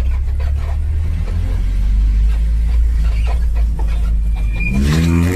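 Vehicle engine rumbling deep and steady through a newly fitted exhaust, then revving up near the end.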